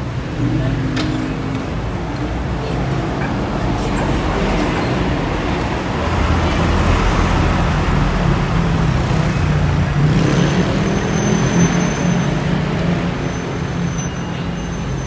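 Road traffic passing on a multi-lane road: steady tyre and engine noise from cars, a motor scooter and a bus going by, growing louder in the middle. A thin high whine joins in for the last few seconds.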